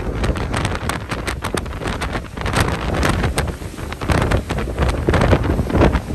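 Tropical-storm wind gusting hard across the microphone: a buffeting rumble that surges and eases from gust to gust.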